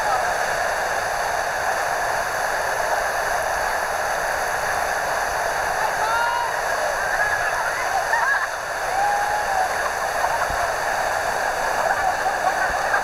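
White-water river rapids rushing steadily, with a few short calls rising over the noise around the middle.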